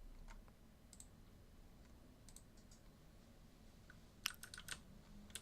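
Faint clicks of a computer keyboard and mouse, with a few scattered clicks and then a quick run of keystrokes about four seconds in.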